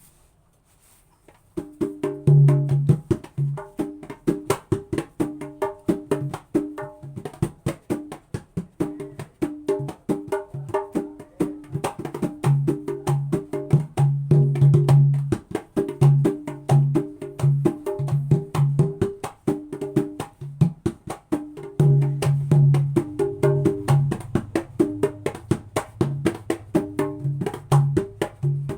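Javanese kendang ciblon with a plain jackfruit-wood shell, played by hand in fast, busy patterns from about a second and a half in. Crisp, sharp slaps mix with deep pitched bass strokes.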